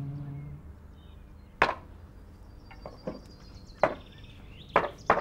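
Sharp chopping strikes of a tool biting into something solid: four loud blows at uneven intervals, with two fainter ones between them. They follow the last of a music cue, which stops about half a second in.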